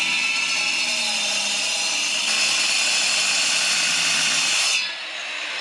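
Corded angle grinder's cutting disc grinding into a concrete slab: a loud, steady, high-pitched cutting noise that drops sharply to a quieter run about five seconds in.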